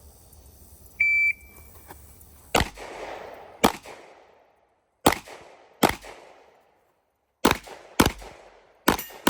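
Glock pistol shots, about eight over some seven seconds at uneven spacing, each crack followed by a rolling echo. A short high electronic beep sounds about a second in, before the first shot.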